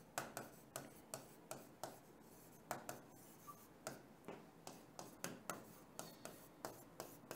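Faint short scratching strokes of handwriting, about two or three a second with a brief pause near the middle, as a sentence is written out.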